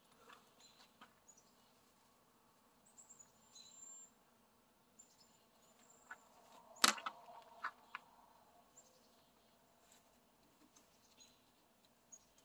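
Quiet handling of a bimini top's strap and frame: scattered light ticks and rustles, with one sharp click about seven seconds in and a few lighter clicks just after it. Faint bird chirps come and go in the background.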